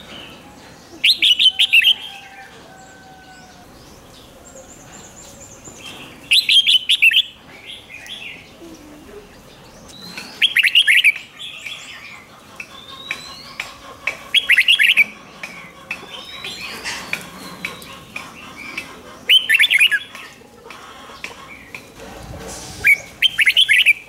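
Red-whiskered bulbul singing: six short, loud phrases of quick notes, one about every four seconds, with fainter chirps between them.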